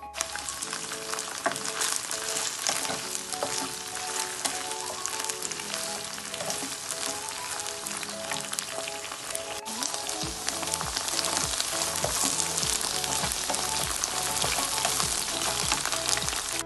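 Cut okra sizzling and crackling in hot oil in a nonstick wok while it is stirred with a wooden spatula.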